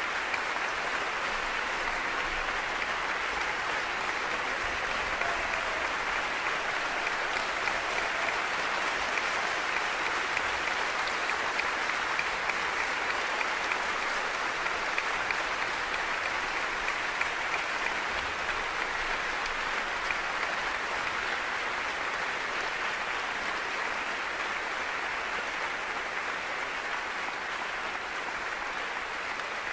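A large audience applauding: a dense, steady wash of clapping that eases slightly near the end.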